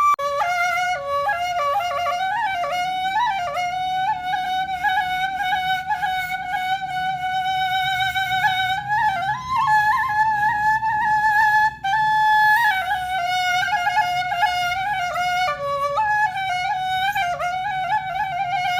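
Instrumental background music: a single melody line that slides and ornaments between notes, over a soft low accompaniment.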